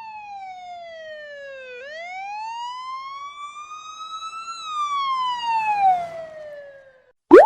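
Siren wail sound effect: a single siren tone that slowly falls, climbs back up over a few seconds and falls away again, loudest near its peak and just after. It is cut off by a quick rising sweep at the very end.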